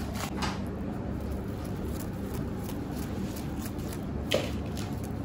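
Soft rustling and patting as hands press crushed butterscotch praline onto the whipped-cream sides of a cake, over a steady low background hum, with one sharper click about four seconds in.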